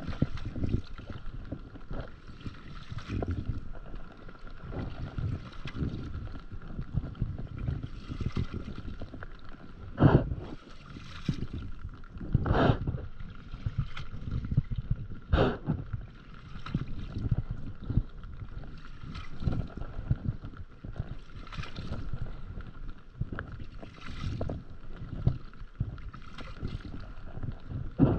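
Stand-up paddleboard paddle strokes, the blade dipping and pulling through the water, over a steady rumble of wind on the microphone. Three sharper splashes or knocks stand out around the middle.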